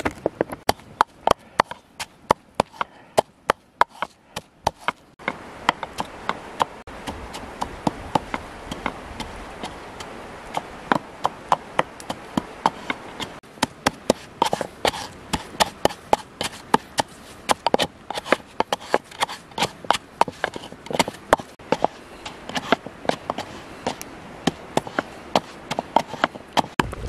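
Wooden pestle pounding chillies and salt in a mortar: repeated sharp knocks, about one to two a second, over a low steady hiss.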